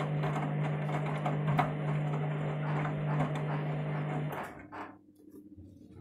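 Candy washing machine filling with water for the fabric conditioner rinse: water rushing into the drum over a steady hum, with small splashing clicks, stopping abruptly about four seconds in.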